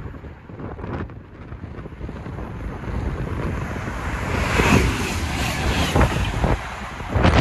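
DSB IC3 (MF) diesel trainset passing the platform: a rushing noise that swells to its loudest about halfway through, with wind buffeting the microphone.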